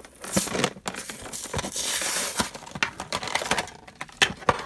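Toy packaging being opened by hand: a cardboard sleeve slid and pulled off a clear plastic blister tray, with plastic crinkling and sharp clicks and taps. There is a longer scraping rustle about two seconds in.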